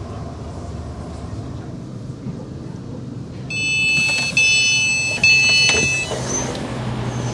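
Class 450 electric train's low running rumble, then about three and a half seconds in the passenger door's alert tone beeps steadily as the door-open button is pressed, and the door opens with two sudden louder bursts.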